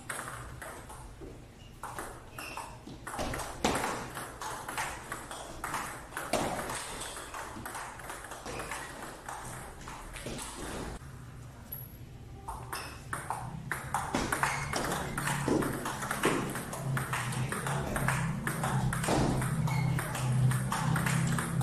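Table tennis rally: a plastic ball clicking rapidly off rubber paddles and bouncing on the tabletop, with irregular overlapping knocks from more than one table. A steady low hum comes in about two-thirds through.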